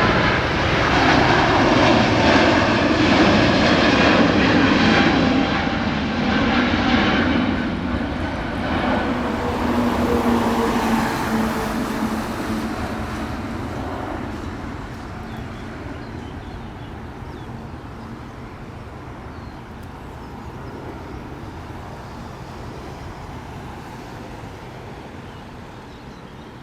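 Jet airliner departing, its engines loud at first and then fading steadily over about fifteen seconds as it climbs away, the whine dropping slowly in pitch.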